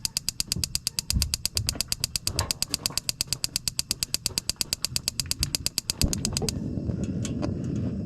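Spark igniter of a three-way camper refrigerator's LP burner clicking rapidly, about seven clicks a second, while propane reaches the burner. About six seconds in the burner lights with a steady low rush of flame and the clicking stops soon after: the serviced burner has ignited.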